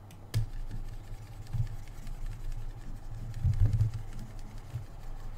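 Low steady background hum with a sharp click about half a second in and several dull low thumps, the loudest about three and a half seconds in: desk-side noise of someone working at a computer.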